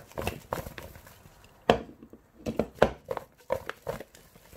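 Pieces of raw plantain tossed in a bowl to spread the salt through them: a run of short knocks and thuds as the slices tumble against each other and the bowl.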